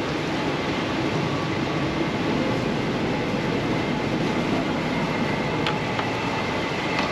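The catamaran's engines running in reverse to take the way off the boat: a steady, even noise that holds its level throughout.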